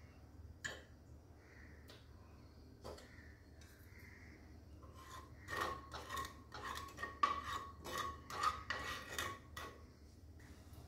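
A flat metal spatula scraping and stirring spice powders in oil across a non-stick frying pan: a quick run of scraping strokes with a slight metallic ring through the second half, after a couple of light clicks early on.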